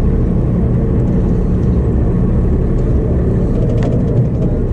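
Steady low drone of a sportfishing boat's engine running, mixed with wind and water noise on the open ocean.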